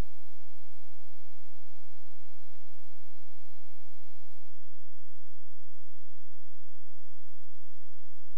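Loud, steady electrical mains hum with a faint hiss, on an otherwise empty audio track. About four and a half seconds in, some of the higher whining tones drop out and the hum carries on.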